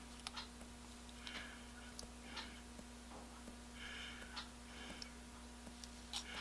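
Faint small clicks and taps from handling small metal chuck parts and a measuring tool, with a few breaths close to the microphone. A steady low hum runs underneath.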